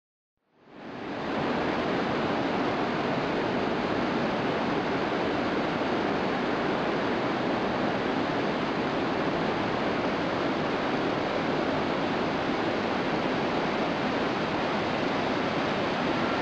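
Steady roar of the Iguazu Falls cascades, rushing water with no break, fading in about half a second in.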